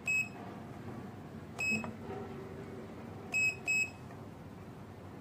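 Standalone access-control keypad beeping as its keys are pressed while it is being programmed: four short, high beeps, one at the start, one a little under two seconds in, and two close together about three and a half seconds in.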